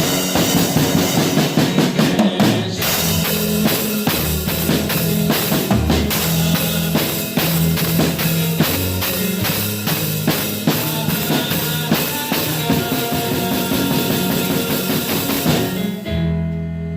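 Worship music with a drum kit playing a busy beat of kick, snare and rimshot over a bass line. About a second before the end the drums stop, leaving a held chord ringing.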